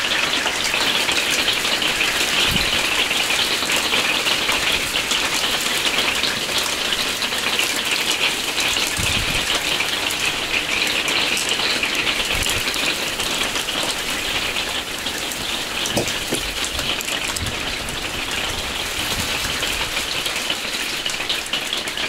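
Steady rain falling, a dense even hiss that starts abruptly and holds throughout, with a few faint knocks.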